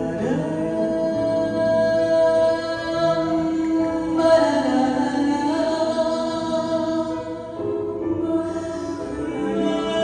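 Sung music: a voice holding long notes, moving to a new pitch every few seconds, over sustained accompaniment.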